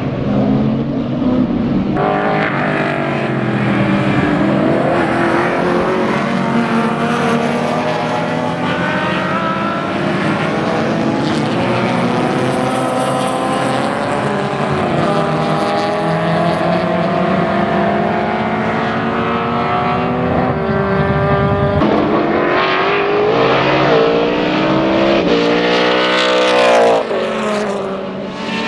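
Several race car engines at high revs, overlapping, their pitch climbing and falling with throttle and gear changes. The loudest, sharpest pitch sweeps come shortly before the end.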